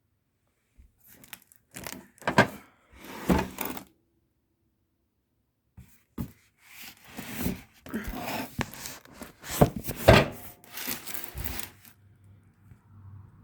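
Cardboard packaging being handled and opened: irregular scraping, tearing and rustling noises with a few sharp knocks, in two bouts with a short pause between.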